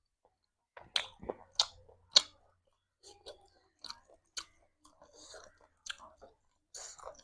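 A person chewing food close to the microphone: wet mouth clicks and smacks, three sharp loud ones about a second in, then softer, irregular chewing.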